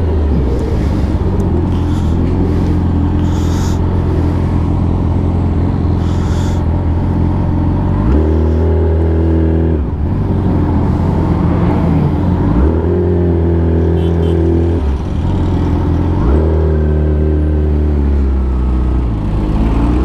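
Yamaha R6 inline-four sport-bike engine heard from the rider's seat, running low through traffic. Three times the throttle opens and the pitch steps up for a couple of seconds before falling back.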